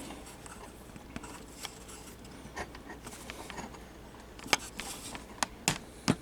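Handling noise: a few light taps, then four sharp clicks and knocks in the last two seconds.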